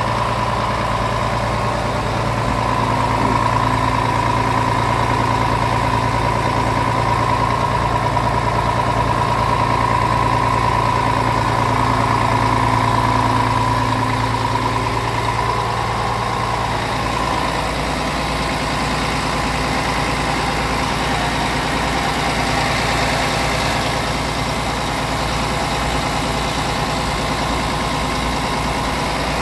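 Scania R tractor unit's diesel engine idling steadily. Its hum changes slightly about halfway through.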